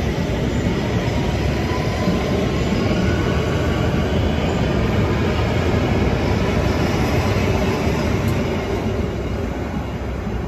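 London Underground S8 Stock electric train pulling out of the station and running past at close range, a steady rumble and rattle of wheels on rail with a faint rising electric whine as it gathers speed. The sound fades near the end as the last cars move away.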